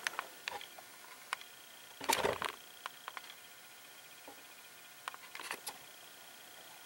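Quiet room with faint handling noises: a few light clicks, a louder short rustle about two seconds in and another small cluster of clicks and rustles around five seconds.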